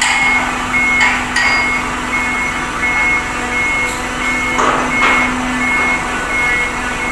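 A vehicle's reversing alarm beeping, about two high beeps a second, over a steady engine hum, with a few metal knocks.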